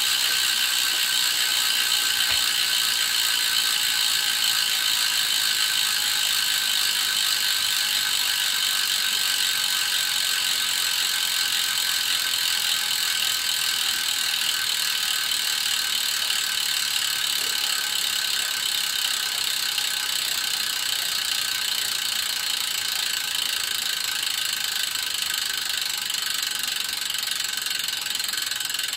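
Novatec NT-D362-SB rear hub freewheeling, its freehub pawls clicking over the ratchet as a dense, continuous, high-pitched buzz while the wheel spins and the cassette is held still. It grows slightly quieter as the wheel slows.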